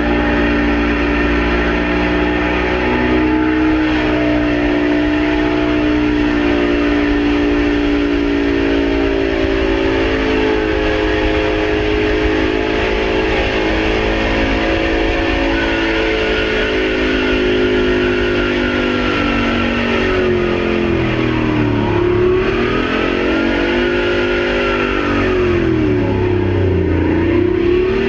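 An engine running at high revs, holding a steady pitch, then dropping and climbing back in pitch twice near the end.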